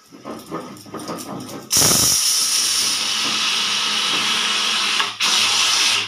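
Pressure cooker whistle venting: a soft sputtering, then about two seconds in a sudden loud steam hiss that runs on with a brief break near the end. Froth spews out of the vent over the lid with the steam.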